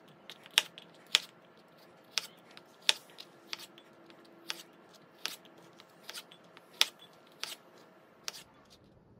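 Chef's knife cutting through garlic cloves and knocking down on a plastic cutting board: about eleven sharp, irregular chops, roughly one every 0.7 s, stopping shortly before the end.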